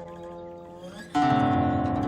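Guqin played solo: a held note dies away with a short upward slide in pitch, then a strongly plucked note about a second in rings on.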